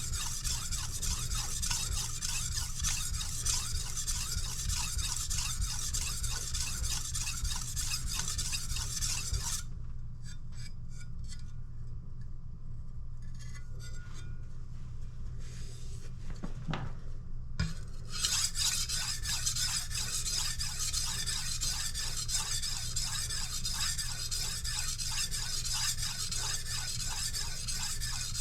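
A kitchen knife blade stroked repeatedly across a sharpening stone, giving a gritty, rhythmic scraping. The scraping stops for about eight seconds in the middle and then resumes.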